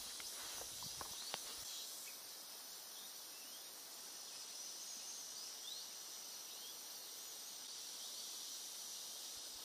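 Steady high-pitched insect drone with short rising chirps repeating about once a second, and a few faint clicks in the first second and a half.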